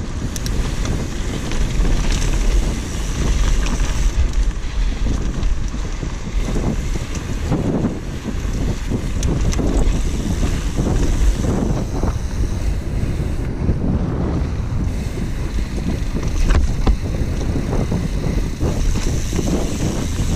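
Wind rushing over the microphone of a mountain bike riding fast down a dry dirt trail. Tyres rumble over the ground throughout, with frequent short knocks and rattles from the bike.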